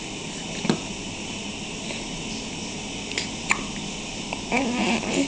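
Hiccups: short sudden hics, one about a second in and two close together about three seconds in, then a longer, noisier sound near the end.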